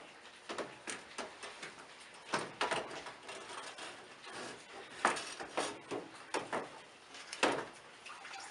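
Irregular knocks, clicks and scrapes as a car radiator is handled and worked down into place in the engine bay, the loudest knocks about two and a half, five and seven and a half seconds in.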